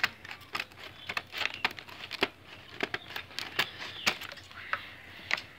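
Sealed plastic packaging being cut and torn open with a blade: irregular crinkling with sharp crackles and clicks.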